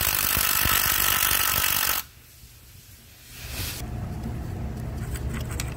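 Milwaukee cordless driver running for about two seconds as it backs out the bolt holding the transmission's output shaft speed sensor, then cutting off suddenly. A low hum with a few faint clicks comes in near the end.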